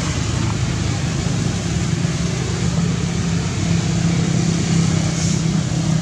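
Steady, loud rumble and hiss with a low hum underneath and no distinct events.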